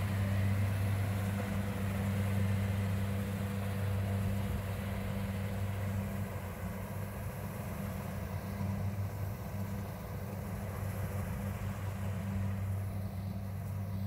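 Kubota rice combine harvester's diesel engine running steadily as the machine harvests, a constant low drone that grows a little fainter in the second half as it moves away.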